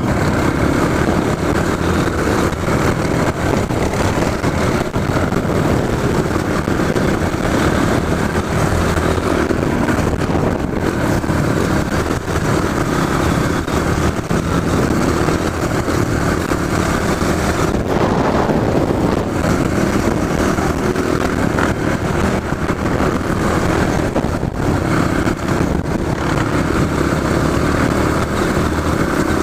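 Trail motorcycle engine running steadily and loudly.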